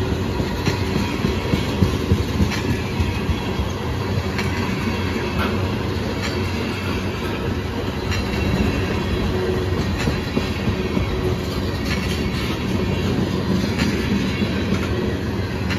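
Freight train tank cars rolling past close by: a steady rumble of steel wheels on rail, with irregular clicks and knocks from the wheels and trucks.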